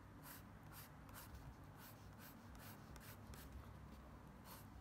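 Graphite pencil scratching across drawing paper in faint, quick repeated strokes, about two to three a second, as short curved contour-hatching lines are drawn.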